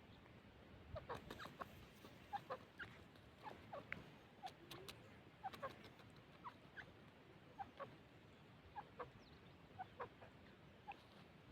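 Grey francolin giving faint, short, scattered chirps and clucks, about one or two a second.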